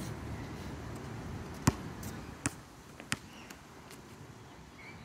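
A basketball bouncing on an outdoor hard court, four times, each bounce softer and closer together than the last, the first about a second and a half in.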